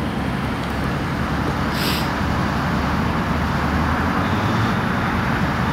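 2014 LaFerrari's V12 engine running under way with road noise, a steady low rumble that grows slightly louder. A short hiss comes about two seconds in.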